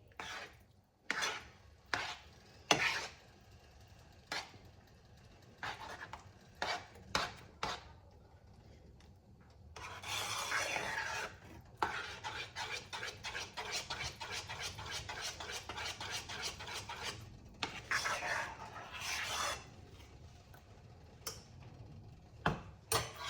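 A utensil stirring and scraping a thick cheese sauce in a pot, with scattered clinks against the pot's side and a quick run of regular strokes in the middle.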